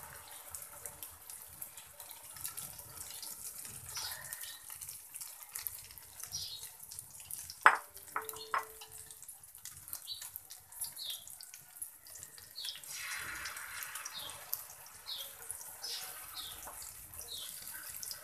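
Egg omelette mixture frying in oil on a hot iron tawa, a steady crackling sizzle that swells again about two-thirds of the way through. Two sharp clicks come near the middle.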